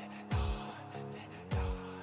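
Experimental hard rock backing track: sustained guitar or synth chords over a deep, pitch-dropping drum hit about every 1.2 seconds and quick, steady hi-hat ticks.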